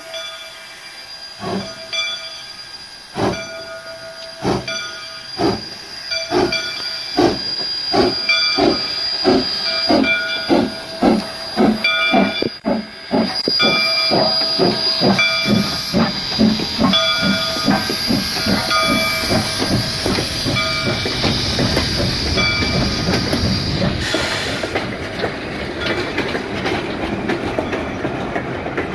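Soo Line 1003, a 2-8-2 Mikado steam locomotive, chuffing as it pulls past, its exhaust beats coming steadily faster as it picks up speed, with a steady hiss of steam. From about twenty seconds in, the chuffs give way to the even rumble of freight cars rolling by.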